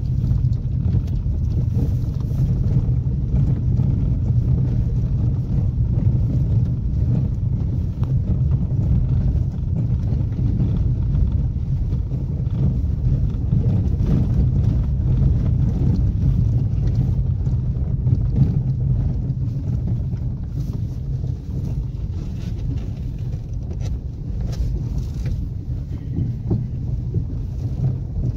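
Car driving slowly over a rough dirt track, heard from inside the cabin: a steady low rumble of engine and tyres, with small knocks and rattles from the uneven ground, more of them toward the end.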